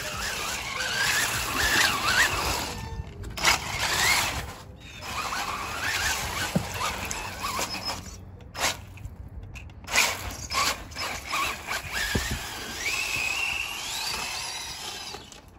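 Brushless-motor RC truck driving on slushy, snowy concrete: the motor's whine rises and falls with the throttle over the hiss of the tyres spinning through slush, cutting out briefly a few times, with a few sharp knocks.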